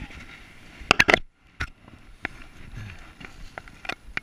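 Close handling noise: a cluster of loud, sharp knocks and clicks about a second in, a brief hush, then scattered light clicks and crackles as the landing net holding a brown trout is handled among dry leaves and undergrowth.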